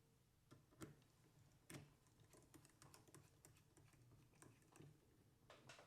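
Faint, scattered small clicks and ticks of a small screwdriver and screw being worked back into the Canon camera body, the screw hole used to oil the shutter gear.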